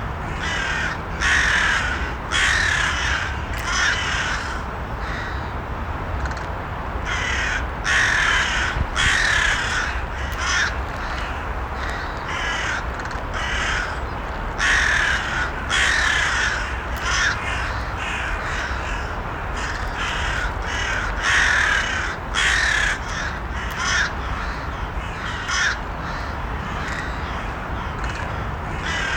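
Crows cawing over and over, the calls often coming in quick runs of two or three, over a steady low background rumble.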